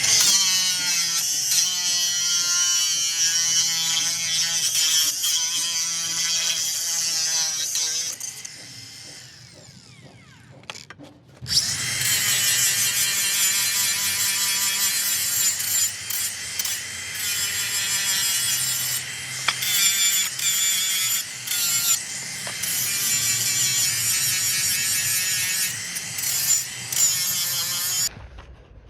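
A power tool cutting 2.5 mm mild steel plate, its motor pitch wavering under load. It runs for about eight seconds and winds down, then starts again about a second and a half later and cuts on until it stops abruptly near the end.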